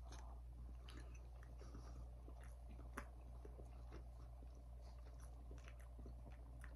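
Faint chewing of a mouthful of barbecue meat patty: soft, irregular mouth clicks, one a little sharper about three seconds in, over a low steady hum.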